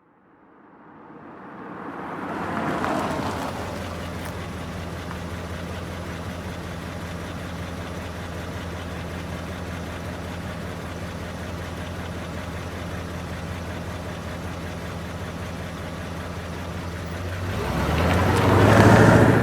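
1972 Ford Custom driving in and coming to a stop, then idling steadily. Near the end the engine revs up loudly as the car pulls away.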